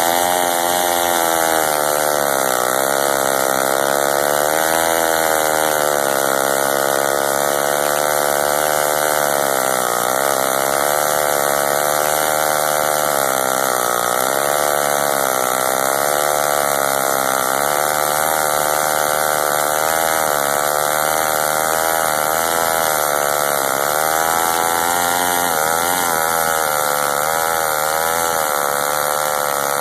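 Ram Tools Deluxe RC-18D two-stroke chainsaw running at full throttle with its 3/4-pitch chain cutting through a maple log. The engine pitch sags and recovers every few seconds as the chain loads down in the wood.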